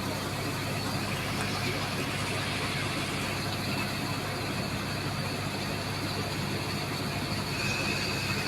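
Steady engine drone under a constant rushing hiss, typical of a high-pressure water pump and jet hose running. A faint high thin tone comes in near the end.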